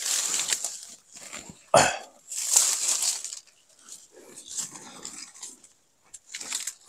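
Mango-tree leaves and branches rustling in irregular bursts as a climber shifts about in the canopy, with one short, sharp, louder sound about two seconds in.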